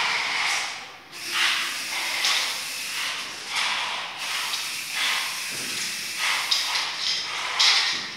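Aerosol spray-paint can hissing in a series of short bursts, roughly one a second.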